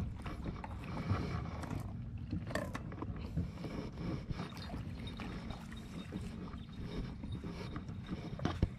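A plastic kayak on shallow water: water lapping and splashing about the hull, with a steady wind rumble on the microphone and scattered light knocks. There is a sharper knock near the end.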